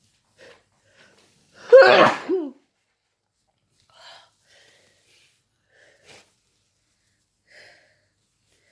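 One loud, explosive human sneeze about two seconds in, from someone who is sick and in the middle of a sneezing fit. It ends in a short second push. A few faint, short noises come before and after it.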